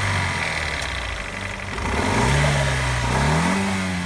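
Fiat 875 cc two-cylinder TwinAir Turbo petrol engine idling, then revved about two seconds in, its pitch rising and holding before easing off slightly near the end.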